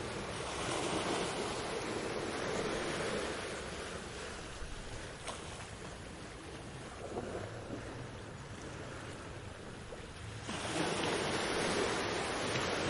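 Ocean waves washing onto a beach: a steady surf hiss that eases off through the middle and swells again as a new wave breaks near the end.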